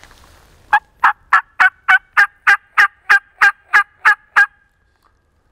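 Hen turkey yelps made on a three-reed diaphragm mouth call: a loud series of about thirteen evenly spaced yelps, roughly three a second, stopping abruptly after about four seconds. It is a calling sequence sent ahead of a hill crest to strike a gobbler.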